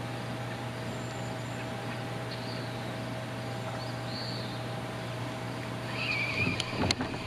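A steady low hum under open-air background noise, with a few faint, short, high bird calls scattered through it.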